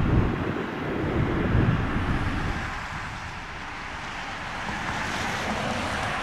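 Wind buffeting the microphone, gusting hard for the first two and a half seconds, then easing to a steadier rush. A vehicle passes near the end, adding a rising hiss.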